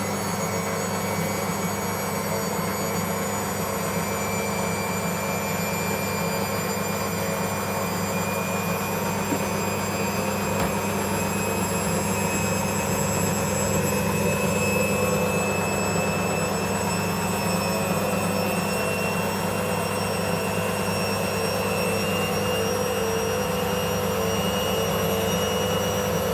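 Beko 5 kg washing machine running, probably spinning, with a steady motor hum and a high whine that rises slowly in pitch as the drum speeds up. The owner calls the load unbalanced, with a small suds lock.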